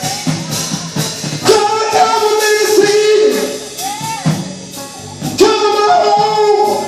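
Live gospel praise band playing with drum kit and guitar, with held sung or instrumental notes over a steady beat.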